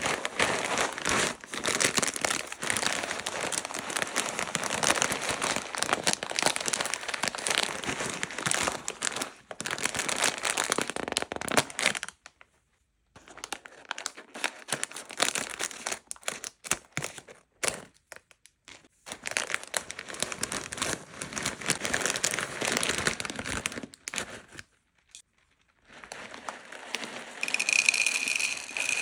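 Plastic sweet packaging crinkling and tearing as it is unwrapped, dense for long stretches with a few short pauses. Near the end there is a brief high steady tone.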